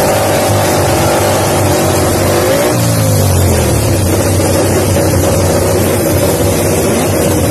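MotoGP race bike engine running on a paddock stand at a steady fast idle, with one brief rise and fall in revs about three seconds in.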